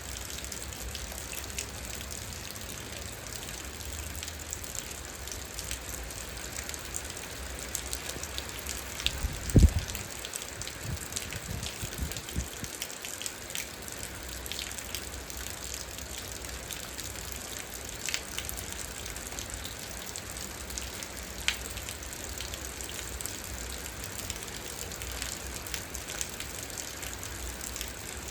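Steady rain falling, with many small sharp drop hits on a surface. About ten seconds in there is one loud low thump, followed by a brief low rumble.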